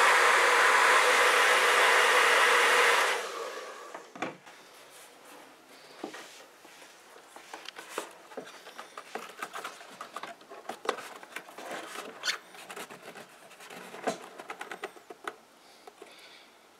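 Handheld hair dryer blowing hot air onto leather, stopping abruptly about three seconds in. Then faint rustling and scattered light clicks as hands press and tuck the leather around a plastic door-panel backing.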